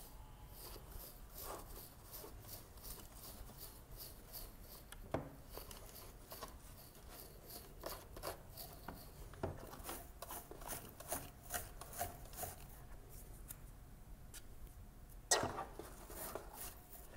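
Small comb raking hair and debris out of the bristle brush of a Hurricane Spin Broom: a run of faint scraping strokes, about one or two a second, with a louder knock near the end.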